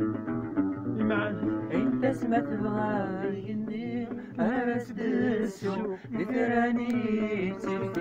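Music: a voice singing over a plucked string instrument such as a guitar.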